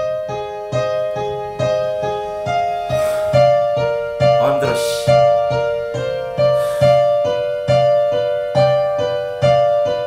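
Piano-led karaoke backing track playing: an electric-piano melody over chords restruck at an even pace, about once a second, with a low bass note under them.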